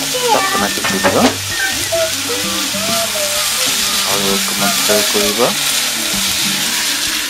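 Diced ridge gourd, tomato and onion sizzling in oil in a nonstick frying pan, with a plastic spatula stirring and scraping through the vegetables partway through.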